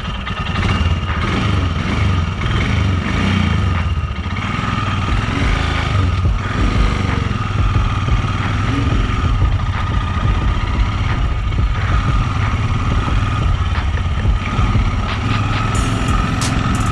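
Royal Enfield Himalayan's single-cylinder engine running steadily as the motorcycle rides over a loose-stone dirt track, with the tyres crackling and stones clicking against the wheel.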